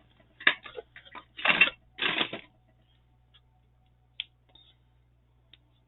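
Handling noise from craft materials: a few short, loud rustling and scraping bursts in the first two and a half seconds, then a couple of faint clicks.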